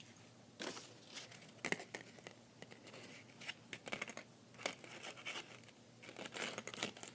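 Faint handling noise: scattered light clicks and rustles as a bag charm and key holder is turned over in the hands, with a denser patch of rustling near the end.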